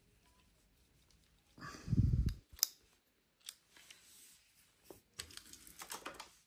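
Plastic toys being handled: a dull bump about two seconds in, then scattered light clicks and taps.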